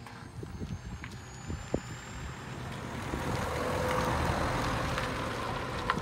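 A road vehicle passing close by, its engine and tyre noise swelling to a peak about four seconds in and then fading. Gusty wind buffets the microphone throughout.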